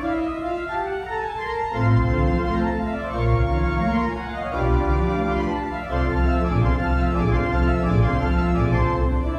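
1914 W.W. Kimball pipe organ playing by itself from a perforated paper music roll: sustained full chords over a moving bass line.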